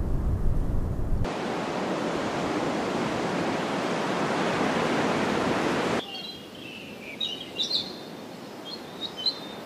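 Outdoor nature ambience edited in segments. A low rumble is cut off about a second in by a steady rushing hiss. About six seconds in the hiss gives way to birds chirping and calling over a quiet background.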